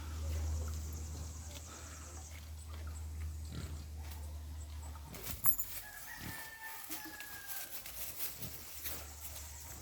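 A rooster crowing once, a long drawn-out call about six seconds in, over a low steady rumble that stops about five seconds in.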